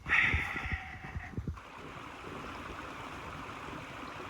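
Steady rushing of a running stream. In the first second and a half it is louder, with a few low thumps.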